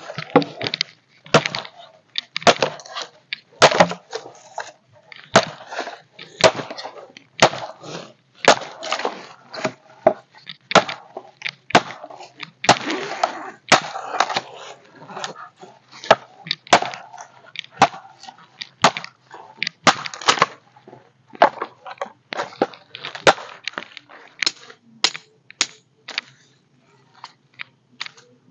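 Dry dead branches being broken up for firewood: a long irregular series of sharp cracks and snaps, one to three a second, growing sparser and fainter near the end.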